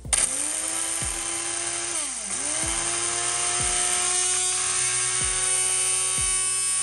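Small electric blender switched on and running, grinding almonds with yogurt into a paste. Its motor pitch rises as it spins up, sags sharply about two seconds in as it bogs down under the load, then recovers and holds steady. Background music with a regular beat runs underneath.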